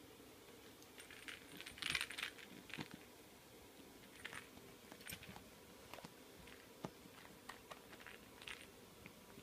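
A cat wrestling a toy on carpet: faint scuffling and light metallic jingles from its collar tag, in short scattered clicks and bursts, loudest about two seconds in.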